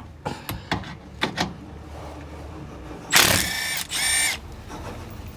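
Cordless power tool with a 10mm socket spinning a belly-pan bolt out of a car's underside: a few light clicks, then two short bursts of motor whine about three seconds in.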